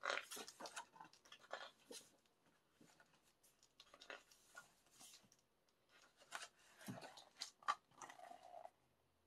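Pages of a glossy photo book being turned and handled: faint, scattered rustling and crinkling of paper.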